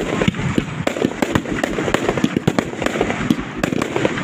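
Aerial fireworks going off in quick succession: a dense, continuous run of sharp pops and bangs from several shells bursting at once.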